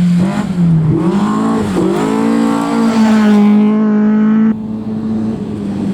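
Historic rally car engine revving hard. Its pitch dips twice in the first two seconds, then climbs and holds high. About four and a half seconds in it cuts off abruptly to a quieter, steady engine note.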